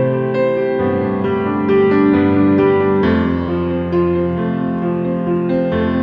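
Background instrumental music: a piano melody over sustained chords, with notes changing every half second or so.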